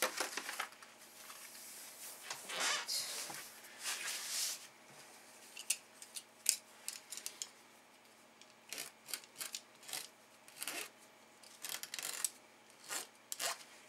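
Light scraping and rubbing of a small hand tool on a diamond-painting canvas and its plastic cover film, with scattered sharp clicks and taps. The longer scrapes fall in the first few seconds; later come mostly isolated clicks.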